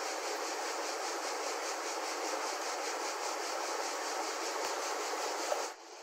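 Fast river current rushing and rippling past a midstream rock, a steady rush of water that drops suddenly to a quieter level near the end.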